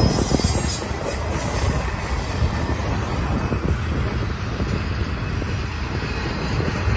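Double-stack intermodal train's well cars rolling past with a steady low rumble of steel wheels on rail, and a brief high wheel squeal near the start.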